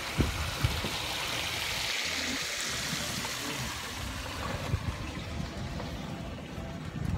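Steady hiss of wind and tyres on the road from a moving open golf cart, with low wind rumble on the microphone and two sharp knocks within the first second.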